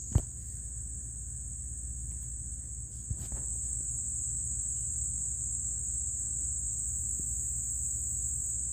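Steady high-pitched chorus of insects such as crickets, with one sharp click just after the start.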